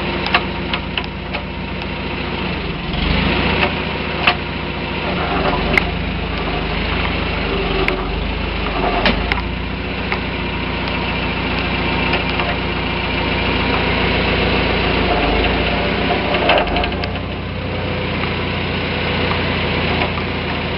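1951 Farmall Super A tractor running steadily, with irregular sharp clicks and knocks over the engine sound: the strange noise the owner hears from the transmission and cannot explain.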